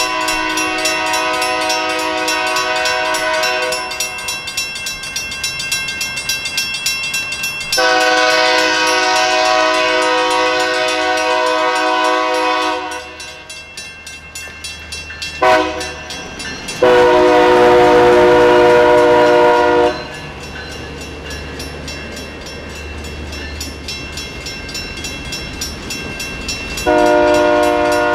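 CFNR 3GS21B genset locomotive's air horn sounding the grade-crossing signal: two long blasts, a short one and a long one, with another long blast starting near the end. Under it the crossing's WCH mechanical bell rings steadily, and the train's low rumble builds in the second half.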